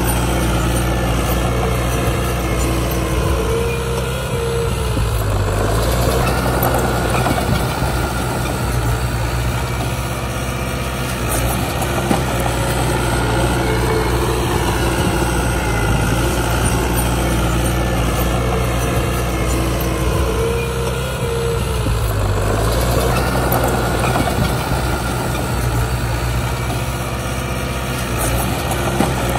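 Heavy diesel engine of earthmoving machinery running steadily, its note dipping and then climbing back twice.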